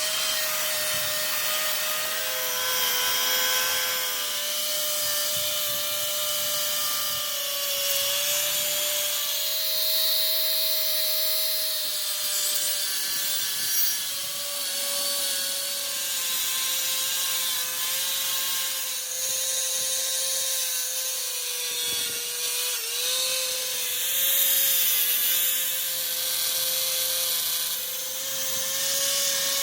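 Handheld electric power tool running continuously with a steady high whine over a rough scraping noise, its pitch sagging briefly now and then as it is pressed into the work.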